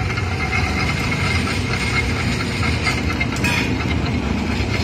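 Motorized sugarcane juice crusher running, its flywheels and geared rollers turning with a steady low mechanical rumble.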